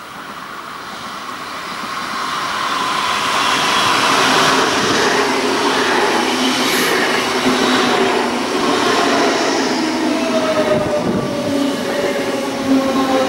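DB Class 424 and 425 electric multiple units pulling into the platform. The rolling noise grows louder over the first few seconds as the train draws level and passes close. About ten seconds in, a motor whine sets in and falls steadily in pitch as the train slows.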